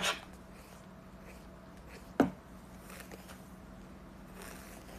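A single sharp knock about two seconds in, over a quiet room with a low steady hum. Faint soft swishes near the end as a paddle hairbrush is drawn through long hair.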